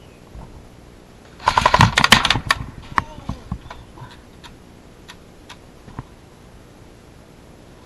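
Airsoft gun firing a rapid burst of sharp clicks lasting about a second, followed by a few scattered single clicks.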